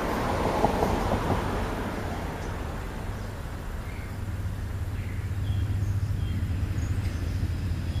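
Road traffic: a vehicle passes in the first second or so, and then a steady low rumble runs on, swelling a little in the second half. Faint short high chirps can be heard over it.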